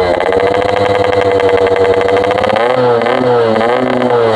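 Yamaha RX King's 135cc single-cylinder two-stroke engine revved through a 'packing power' aftermarket exhaust: held at a steady high rev, then wavering down and back up about three seconds in. The rider reckons the setting is not quite right.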